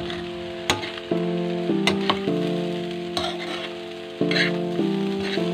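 Fried rice being stir-fried in a pan: a spatula scraping and knocking against the pan several times, over a light sizzle. Background music with sustained, changing chords plays throughout.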